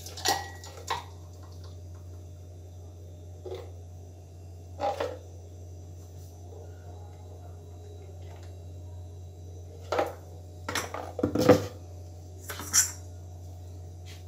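Scattered clinks and knocks of a blender jar and a tall glass against a stone countertop as banana shake is poured, with the loudest knock about three-quarters of the way through, over a steady low hum.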